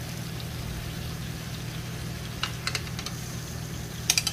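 Hot dogs and burger patties sizzling on an electric smokeless indoor grill over a steady low hum, with light clicks of metal tongs against the grill plate as the hot dogs are turned, a few about halfway through and a quick cluster near the end.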